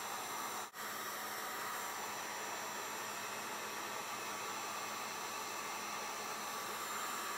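Heat gun blowing steadily with an even airy hiss, cutting out for an instant just under a second in.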